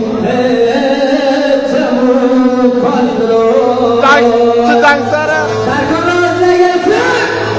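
A man singing through a handheld microphone and loudspeakers, holding long notes that bend and waver, over a steady low electrical hum from the sound system.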